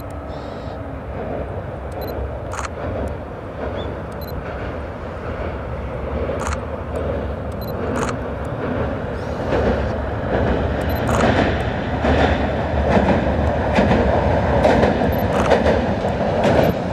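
Tarumi Railway Hi-Mo 295 diesel railcar crossing a steel truss river bridge, its rumble growing steadily louder as it approaches. Sharp wheel clicks over the rail joints come more and more often.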